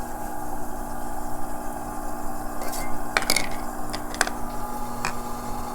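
A few sharp clicks and taps of small hard objects being handled at a faceting machine, over a steady electrical hum.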